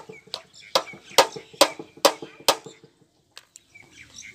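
A child tapping out a rhythm on a hard object: about seven sharp knocks, roughly two a second, each with a short ringing note. The knocks stop about two and a half seconds in, leaving only a couple of faint clicks.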